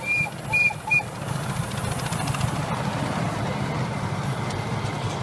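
A miniature railway locomotive gives three short, high toots in the first second. The train then runs on with a steady low rumble.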